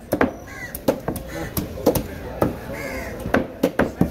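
Crows cawing three times over a run of sharp, irregular knocks from a heavy curved fish-cutting knife striking a wooden cutting board as an octopus is cut up. The knocks are the loudest sounds.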